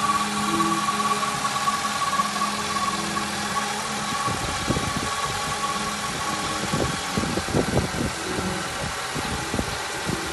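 Honda Stream's engine idling steadily just after starting, now running on a freshly fitted good battery in place of the low one that left the car dead. From about four seconds in, irregular low knocks and rumbles sound over the idle.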